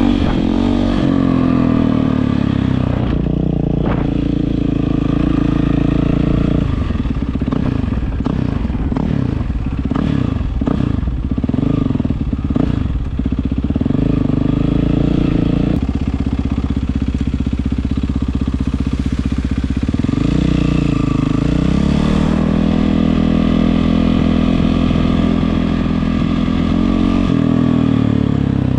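Yamaha WR450F single-cylinder four-stroke engine running through an Akrapovič exhaust: steady at first, then revved up and down over and over for several seconds in the middle, then steady again with one more dip and rise later on.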